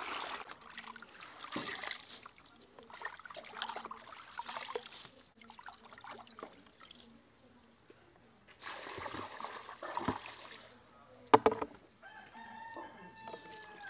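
Water splashing and trickling in a plastic basin as leafy herbs are washed and stirred by hand, in two spells with a quiet gap between. A sharp knock a little after eleven seconds, then a rooster crowing near the end.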